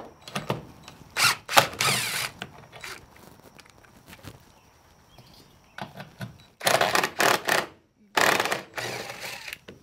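DeWalt 20V cordless impact driver running in short bursts as it backs out the screws holding a wall-mounted light fixture.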